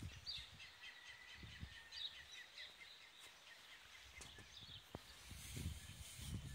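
Faint birdsong outdoors: a rapid series of high chirps over the first half, with low rumbles from wind or handling that grow stronger near the end.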